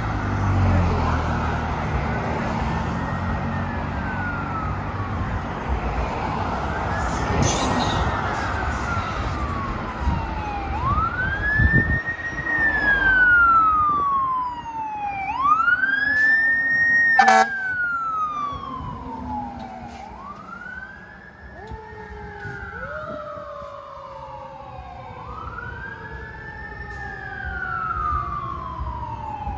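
Fire engine's electronic wail siren: each cycle rises quickly and falls slowly, about every four and a half seconds. A second, lower siren overlaps about two-thirds of the way through. Passing car traffic runs underneath.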